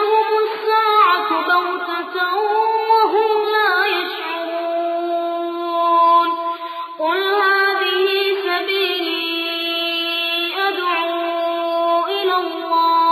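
Quran recitation in a single high voice, chanted in long, held melodic notes with ornamented turns of pitch (tajweed). A new phrase begins about seven seconds in.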